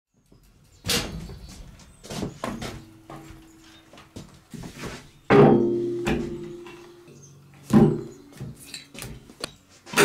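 A heavy hub-motor wheel and boxes set down on a steel workbench top: a series of thumps and knocks, the loudest about five seconds in, with the steel ringing on for a second or so after it.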